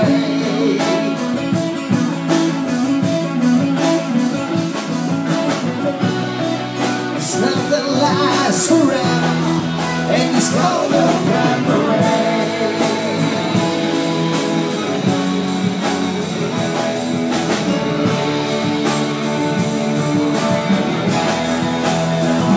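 Live band playing a rock ballad: acoustic guitar and electric guitar over a steady beat, amplified through the stage speakers.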